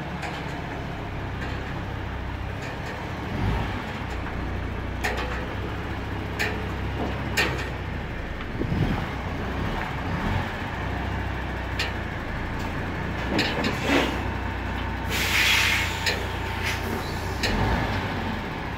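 MAN heavy truck's diesel engine running at a steady low idle, with scattered knocks and clanks. About fifteen seconds in comes a loud hiss of air from the truck's air brakes, lasting about a second.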